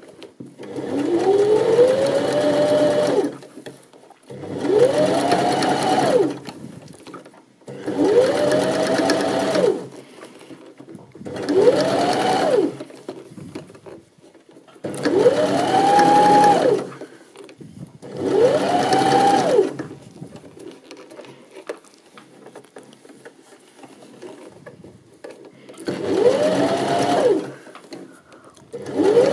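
Janome 725s sewing machine stitching a knit cuff onto a sleeve in short stop-start runs of a second or two each, about eight in all. The motor's whine rises as each run speeds up and drops as it stops, with short pauses between while the fabric is repositioned.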